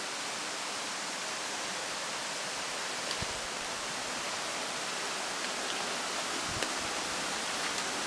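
Steady, even rush of a waterfall: falling water hissing without a break, with a couple of faint low bumps partway through.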